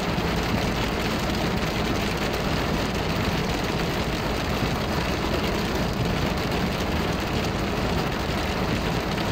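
Heavy rain beating steadily on a car's roof and windshield, heard from inside the cabin.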